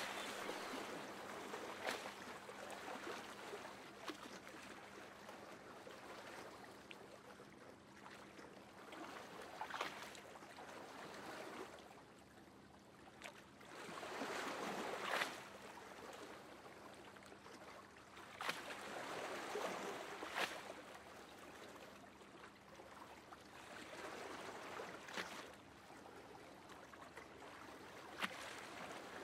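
Moving water, a hiss that swells and fades every few seconds with brief splashes, like waves washing in.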